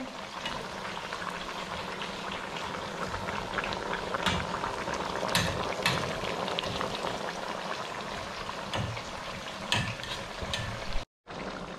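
Steady sizzling and bubbling of plantain slices frying in oil and a pot of curry crab simmering on a gas stove, with a few sharp clicks of a utensil against the pan as the plantain is turned.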